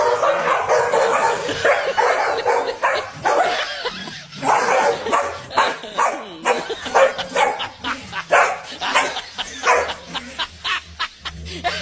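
Corgi barking and yipping at a glass door, a few sharp barks a second with a brief lull about four seconds in.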